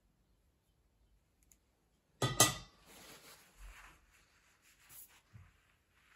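A sudden brief clatter about two seconds in, then soft crinkling and rustling of a plastic film sheet being smoothed and lifted by hand, with a few small knocks.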